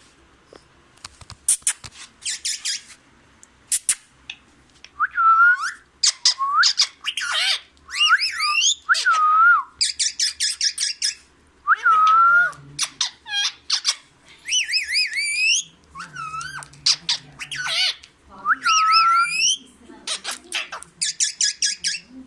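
Pet green parrot calling in a run of harsh screeches mixed with whistly, speech-like gliding phrases, imitating the words 'Mian Mithu'.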